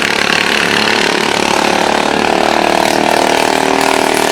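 Racing lawn mower engines running hard around the track, one engine's steady note coming up clearer about a second and a half in.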